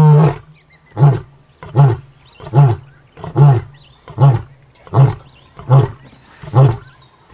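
Male lion roaring: the end of one long full roar, then a run of eight short grunting roars, evenly spaced about every 0.8 seconds.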